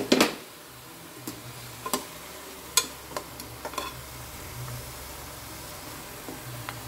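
Spatula stirring pieces of country chicken in a pressure cooker pot: a scatter of separate clinks and scrapes against the metal over a faint sizzle from the hot oil and masala.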